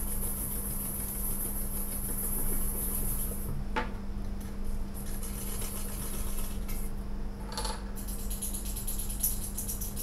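A wire whisk beats egg yolks and sugar in a stainless steel bowl, its tines ticking and scraping rapidly against the metal. After a few seconds this thins to a few sharper clinks as cream is whisked in. A steady low hum runs underneath.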